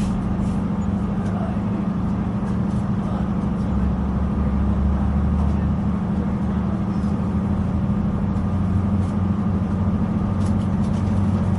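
A Northern Ireland Railways diesel train, heard from inside the carriage while running between stations: a steady low engine-and-rolling drone. A deeper rumble swells for a couple of seconds in the middle, with faint scattered clicks and rattles.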